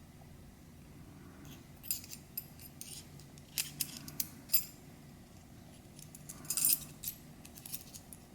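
Small steel pistol parts, a Sig P320 trigger and trigger bar being worked into the fire control unit, clicking and clinking in scattered light taps, with a denser cluster about six and a half seconds in. A faint steady low hum runs underneath.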